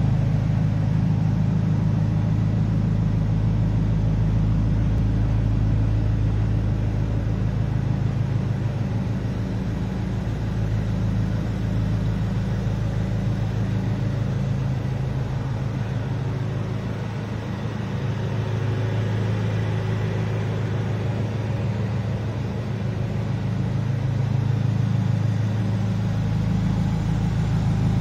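BMW X5 M's 4.4-litre twin-turbo V8 idling steadily, a low even hum that dips a little in loudness about two-thirds of the way through.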